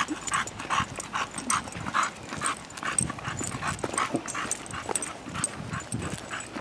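Bulldog panting hard as it walks on the leash, a steady run of short, rasping breaths about three a second, with footsteps on pavement underneath.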